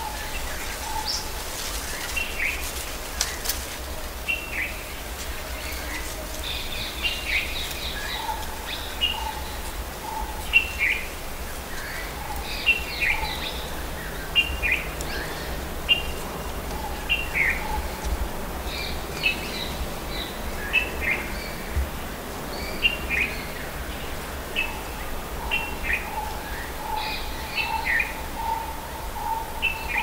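Tropical seasonal forest ambience of several birds calling at medium distance: short, sharp chirps repeat about every second, with runs of lower, softer repeated notes now and then. A steady low rumble of wind runs underneath.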